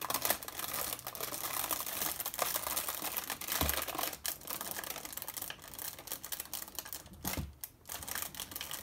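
A hand-cranked crankie scroll being wound along: continuous rattly clicking and crinkling of the paper scroll and its rollers, with two soft low thumps about three and a half and seven and a half seconds in.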